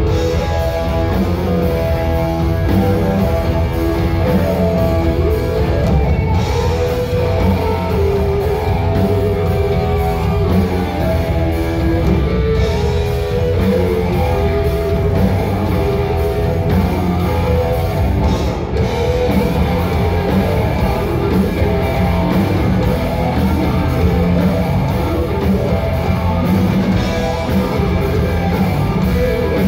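Live rock band playing with electric guitars, bass and drum kit, loud and steady throughout.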